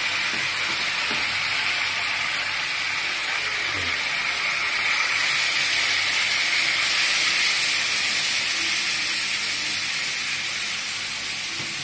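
Water poured into a hot wok of fried chicken wings and potatoes, hissing and sizzling loudly as it flashes to steam. The hiss swells to its loudest about midway and eases toward the end.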